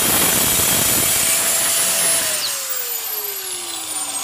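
Angle grinder with a worn-down wheel cutting through a rusted exhaust flange bolt. About two seconds in the cutting stops and the grinder is switched off, its motor whine falling steadily as it spins down.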